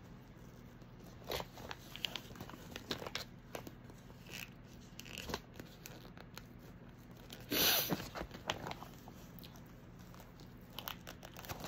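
A stuck zipper being tugged and worked by hand, with scattered small clicks and rustles of the bag and one louder, longer scrape about two-thirds of the way through. The zipper is jammed and will not run.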